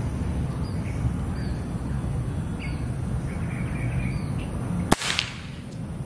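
A single air-rifle shot about five seconds in, a sharp crack, while small birds chirp over a steady low rumble.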